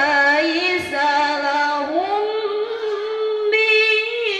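A woman's solo voice chanting unaccompanied through a microphone in the ornamented qari'ah style of Qur'anic recitation. Quick turns and wavers come first, then about two seconds in she rises to a long held higher note.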